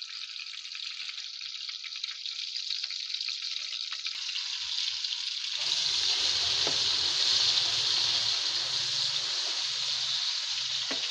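Chopped onion and tomato sizzling in hot oil in a wok for a dal tadka, muffled under a glass lid at first. About halfway through the lid comes off and the sizzle gets clearly louder and fuller.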